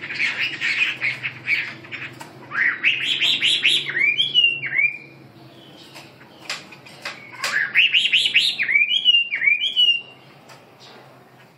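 Caged songbird singing. A fast chattering run comes first, then the same phrase twice, a few seconds apart: a quick series of rising notes ending in a few clear down-slurred whistles.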